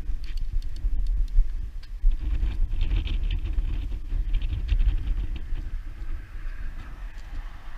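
Wind buffeting the microphone as a loud, uneven low rumble, with scattered light clicks and ticks, thickest between about two and five seconds in.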